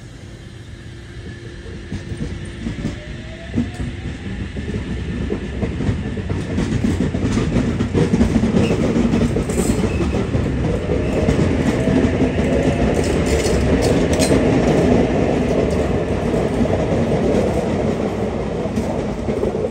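Sydney Trains H set (OSCAR) double-deck electric train moving off past the platform. It grows louder over the first several seconds, with a rumble, scattered clicks from the wheels, and a traction-motor whine rising in pitch as it gathers speed.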